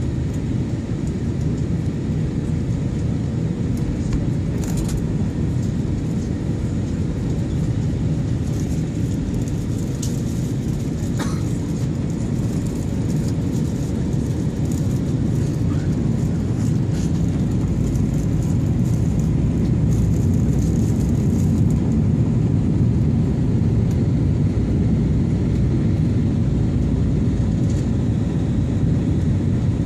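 Airliner cabin noise during descent: a steady low rumble of the jet engines and airflow over the fuselage, with a faint constant hum, swelling a little past the halfway point. A few faint ticks come and go in the middle.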